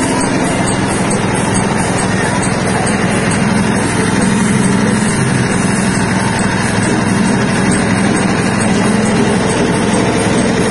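Stainless-steel soybean dehulling machine running steadily while stripping the skins from soybeans: a loud, continuous mechanical drone with a constant low hum.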